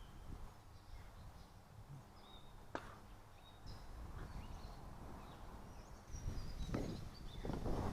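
Birds chirping intermittently over a low outdoor rumble, with a single sharp click about three seconds in and louder rustling noise near the end.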